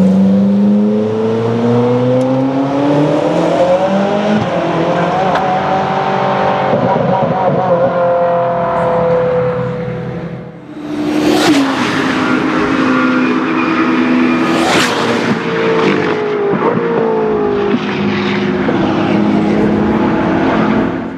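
Race car engines at full throttle in two separate passes, each rising in pitch through the gears. The second pass has sharp cracks about a second and about four seconds after a short break near the middle.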